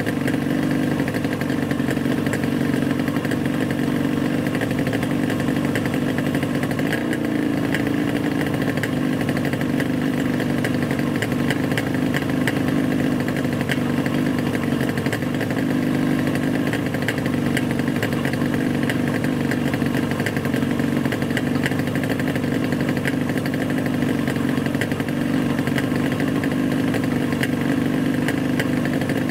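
A vehicle engine running steadily, with a constant low hum that doesn't change throughout.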